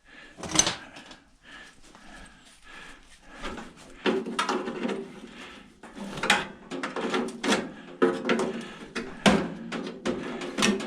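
Metal hand tools clinking and knocking: wrenches being handled and tried on a bolt on the microwave's metal casing, a series of irregular clanks, some with a short ring.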